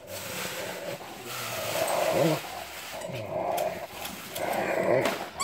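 Small fluffy white dog growling over an oversized rawhide bone, a run of rough, drawn-out growls with short gaps between them.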